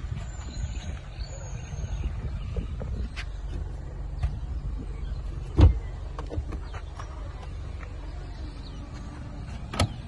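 A steady low rumble with a loud thump about five and a half seconds in, then the boot lid of a 2013 Mercedes-Benz E200 CGI shut with a sharp thud near the end.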